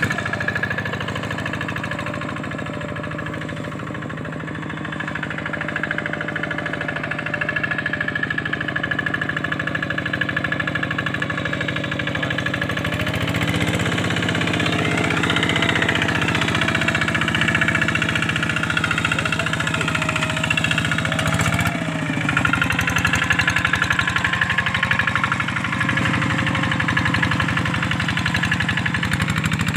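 Single-cylinder diesel engine of a two-wheel hand tractor running steadily under load as it drags a harrow through a flooded rice paddy. It grows louder a few seconds in as the tractor comes closer.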